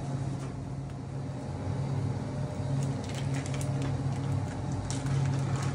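A steady low electrical or mechanical hum with faint, scattered light clicks and rustles over it.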